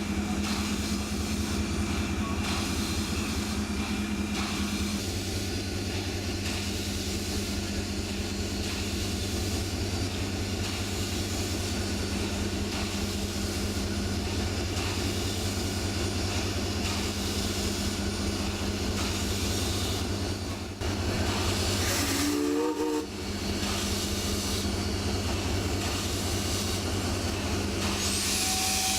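Alco 2-8-0 steam locomotive running with a steady hiss of steam. A steady low tone is strong for the first five seconds and fainter afterwards, and a brief rising tone comes about 22 seconds in.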